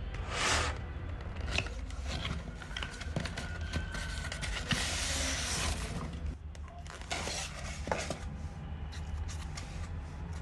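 Cardboard and foam packaging being handled: the box slides open with several rustling swishes and light clicks and knocks, the longest swish about halfway through. A steady low hum runs underneath.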